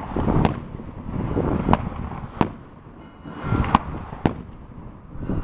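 Fireworks going off: about five sharp bangs spread across a few seconds, with a low rumble carrying on between them.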